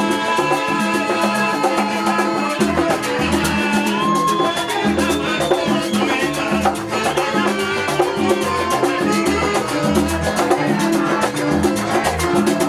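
Upbeat salsa-style Latin music with steady percussion, a pulsing bass and melody instruments playing continuously.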